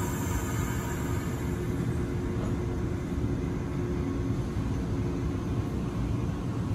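Izu Kyuko 2100 series Resort 21 electric train standing at the platform, its onboard equipment giving a steady low hum with a faint even whine.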